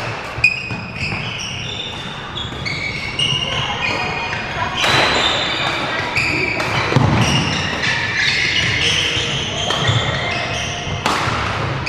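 Court shoes squeaking and footfalls on a wooden sports-hall floor during a badminton match, with a sharp racket strike on the shuttlecock near the start, echoing in the large hall.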